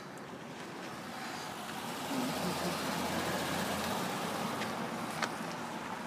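A car passing close by, its engine and tyre noise swelling over a couple of seconds and then easing off, with a single sharp click near the end.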